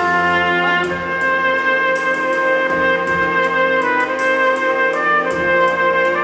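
Solo trumpet playing long sustained notes of a slow melody, shifting pitch a few times, over an accompaniment with a low bass line and a steady ticking beat.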